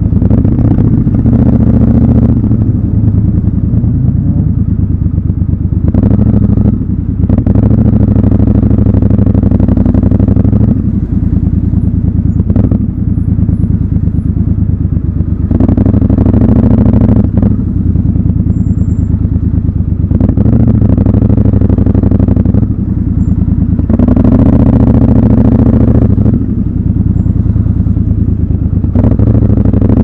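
Triumph Scrambler 1200 XC's 1200 cc parallel-twin engine running at low road speed, the throttle opened and eased off again and again, so the exhaust note swells into short louder surges every few seconds.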